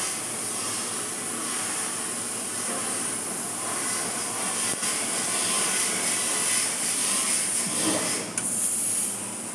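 2 kW CNC laser cutter cutting 3 mm mild steel plate: a steady rushing hiss with a strong high hiss on top, from the cutting jet and the machine. It breaks off briefly about eight seconds in.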